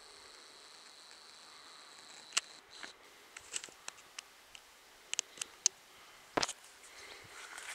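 A steady high-pitched insect trill that stops about three seconds in, then scattered sharp clicks and a single knock a little past six seconds.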